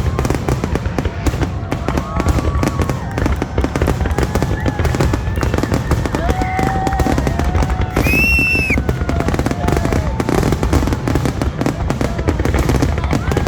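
Fireworks going off nonstop in a dense, rapid crackle over a low rumble, with people's voices mixed in. A brief shrill whistle sounds about eight seconds in.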